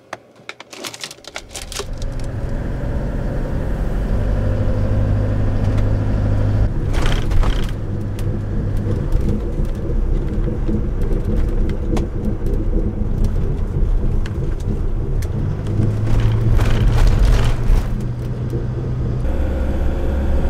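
Camping car driving: steady engine and road rumble that swells and eases as it accelerates, with a few sharp clicks near the start.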